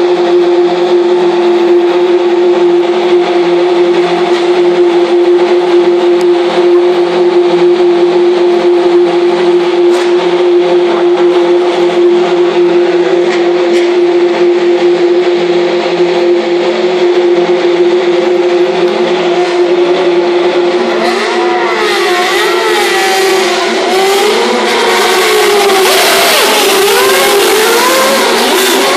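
Several open-wheel single-seater race car engines running at a steady idle, a constant hum. About 21 s in, engines start revving up and down as the cars move off the grid.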